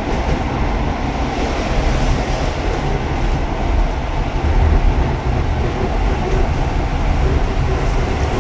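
Running noise heard inside a passenger car of a 1960s Vagónka Tatra Studénka ČD Class 475 electric multiple unit travelling along the line: a steady rumble of wheels on rail and bogies, with no clear beat of rail joints.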